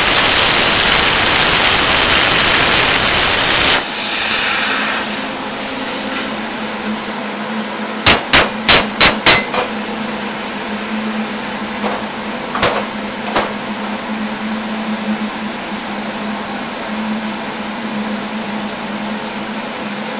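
CNC plasma cutter's arc cutting through steel plate with a loud, steady hiss that cuts off about four seconds in, leaving a quieter steady hiss and hum. About eight seconds in come five sharp knocks in quick succession, with two more a few seconds later, as the cut-out piece is knocked free of the plate.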